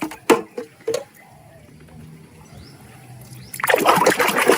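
Water splashing and trickling as a muddy plastic toy animal is rinsed, loudest from about three and a half seconds in. Four light knocks come in the first second.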